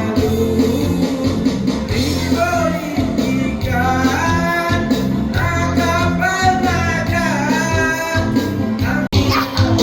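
Music with a singing voice over a steady bass; it cuts out for an instant near the end.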